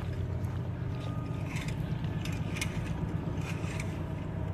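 Steady low mechanical hum, like a running motor or engine, with faint scattered clicks and short scrapes over it.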